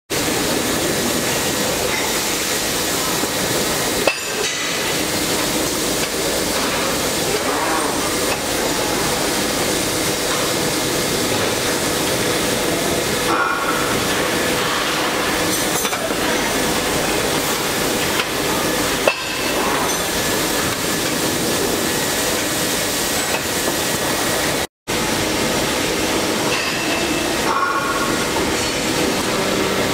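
Steady machine noise of plastic injection molding machines and their conveyor belts running, with two sharp clicks and a few short hisses now and then.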